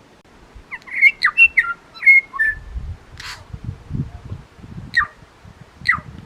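A forest songbird singing: a quick run of varied whistled and chirped notes, a single harsh rasping note, then two sharp downward-sweeping calls near the end.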